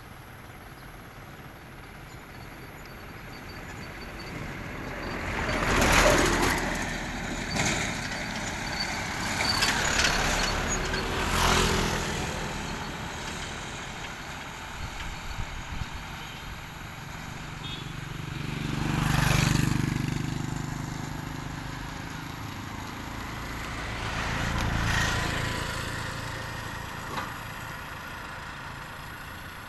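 Road traffic passing by: about five vehicles in turn swell up and fade away. The loudest, closest pass comes about six seconds in, and a deeper, heavier one comes just after nineteen seconds.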